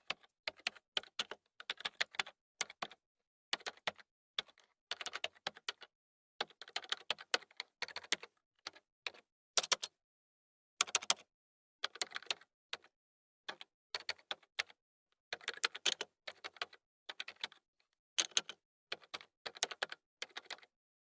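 Typing on a computer keyboard: bursts of rapid key clicks, each lasting about a second, separated by short gaps of complete silence.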